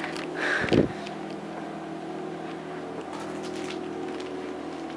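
Handling noise as the CIK TV box's power cable is unplugged and plugged back in: a rustle and a thump about a second in, then a few faint clicks, over a steady low hum.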